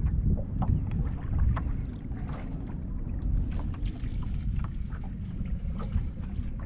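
Wind buffeting the microphone in a steady low rumble, with irregular small slaps and splashes of choppy water against a bass boat's hull.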